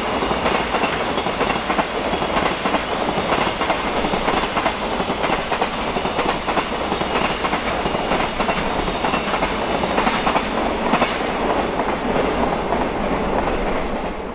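Container wagons of a long JR Freight train rolling past, their wheels running steadily over the rails with a dense rumble and repeated clicks from the rail joints.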